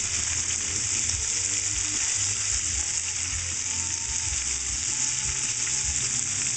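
Battered shrimp deep-frying in a pan of hot oil: a steady, dense sizzle of bubbling oil.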